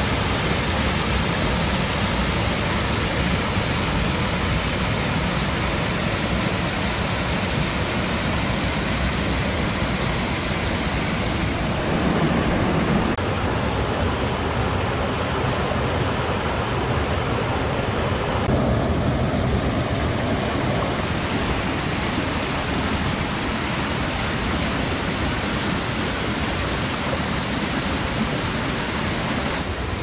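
Rushing white water of a river cascading over and through channels in layered rock, a steady full-range rush whose tone shifts briefly twice, about twelve and nineteen seconds in.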